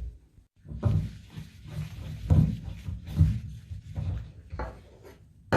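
Handling noise: a series of dull knocks and clunks as fittings around a bath are lifted, moved and set down, and the drain cap is taken off.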